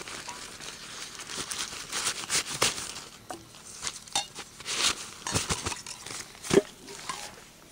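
Fabric stuff sack rustling and crinkling in irregular bursts as it is handled and a bottle is packed into it, with one sharp knock near the end, the loudest sound; the rustling stops shortly before the end.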